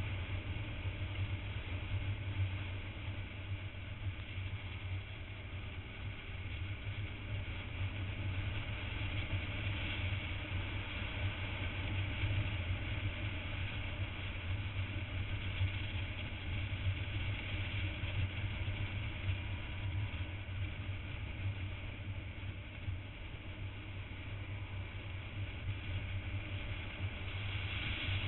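Motorcycle engine running steadily at cruising speed, heard from on board under a constant rush of wind.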